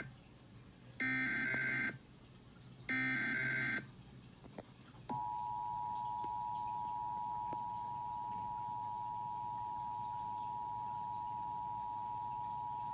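Emergency Alert System signal being broadcast. First come two SAME digital header data bursts, each about a second long with about a second between them. Then, about a second later, the steady two-tone attention signal (853 and 960 Hz together) starts and holds for about eight seconds before cutting off. Together they open an EAS alert, here a Required Monthly Test.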